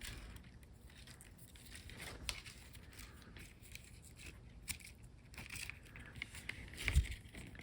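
Faint rustling and small clicks of hands squeezing the leather piece and handling the string on a bamboo shinai, with a soft thump about seven seconds in.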